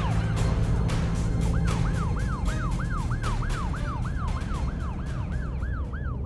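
Police car siren in fast yelp mode: quick rising-and-falling wails, about three a second, with a short break near the start.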